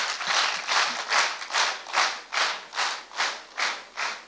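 Audience clapping in unison, a steady rhythm of about two and a half claps a second, growing a little fainter toward the end: a rhythmic ovation for a finished recital.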